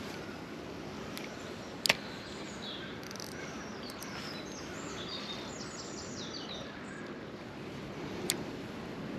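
Quiet outdoor ambience with small birds chirping for a few seconds in the middle. Two sharp clicks, the louder about two seconds in and another near the end.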